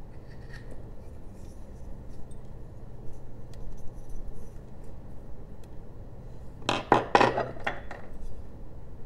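Light scraping and small cuts of a carving knife on basswood, then, about seven seconds in, a quick run of four or five loud clinks and clacks as metal carving tools are handled on the wooden workbench.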